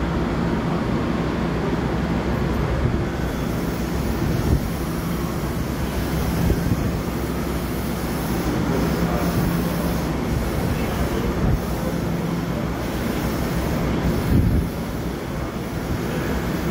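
A train running out of sight, a steady low hum over a continuous rumble, with a few brief knocks.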